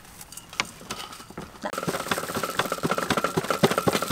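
Hands pressing and turning chicken breasts in dry breadcrumbs on steel trays: a crisp crunching and crackling of crumbs, sparse at first and much louder and busier from about two seconds in.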